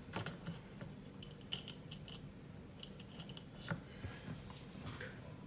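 Small metal clicks and clinks from handling multimeter test leads against a shunt, in two quick clusters about a second in and about three seconds in, over a faint steady low hum.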